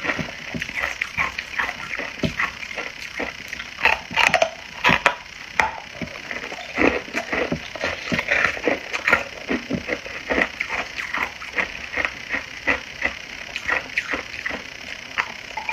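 Hard ice being bitten and chewed close to the mouth: a steady run of sharp cracks and crunches, several a second, with a few louder bites about four and five seconds in.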